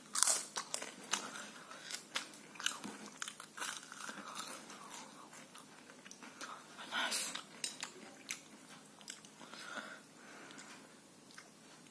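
A person chewing and crunching crispy food by mouth close to the microphone, a run of short, sharp crunches, the loudest right at the start and about seven seconds in.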